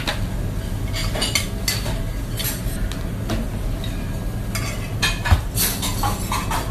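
Kitchen clatter: a metal spatula clinking and scraping against pans and plates, with scattered sharp clicks over a steady low hum.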